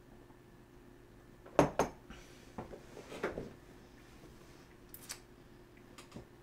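Ceramic mug set down on a desk with a sharp knock about a second and a half in, a second knock just after, then a few quieter knocks and rustles of things being handled on the desk.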